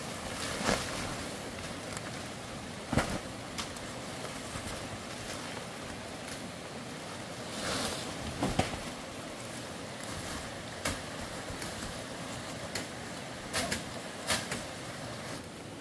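Leafy tree branches rustling and dragging as they are pulled off a thatched roof by hand, with a few sharp cracks and knocks of wood snapping or being chopped, over a steady background hiss.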